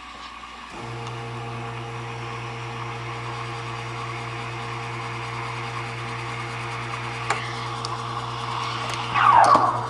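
La Spaziale S1 Vivaldi II espresso machine's steam wand hissing in a stainless pitcher of milk, steaming and frothing it for a cappuccino. A steady hum from the machine joins about a second in, and the hiss surges loudly near the end.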